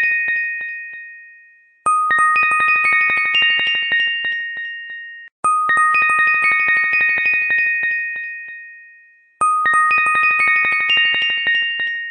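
Background music: a short, bright chime phrase of quickly struck ringing notes that stacks up and then fades, looping about every three and a half seconds.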